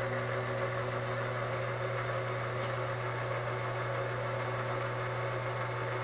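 Steady hum of running machine-shop equipment, with several fixed tones held over a low drone. A short high chirp repeats about every 0.7 s throughout.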